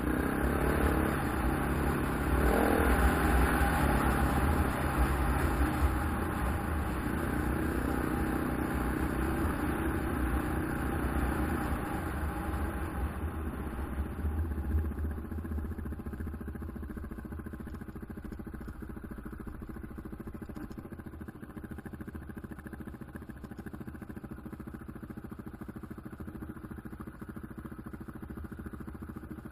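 KTM 690 Enduro's single-cylinder engine running while riding on a dirt trail, with a brief rise in revs a few seconds in. It is louder for the first half, then quieter and steadier from about halfway.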